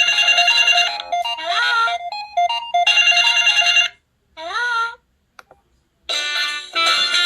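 Synthesized polyphonic MMF ringtones playing on a Samsung SGH-X497 mobile phone. A melody with gliding notes ends about five seconds in, a faint click falls in a short silence, and another ringtone starts about a second later.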